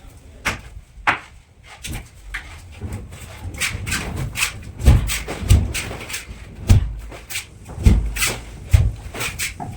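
Irregular knocking and tapping, growing louder about halfway through, with heavier dull thumps roughly once a second.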